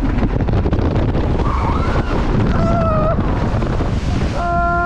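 Wind rushing over the microphone of a water coaster boat at speed, with a hiss of water spray near the end as it splashes down. Short cries from a rider, then a long held shout starting near the end.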